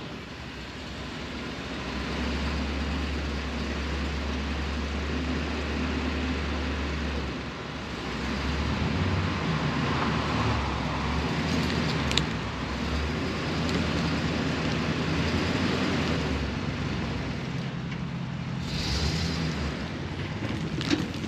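John Deere 1025R compact tractor's three-cylinder diesel engine running steadily, its note shifting a few times partway through.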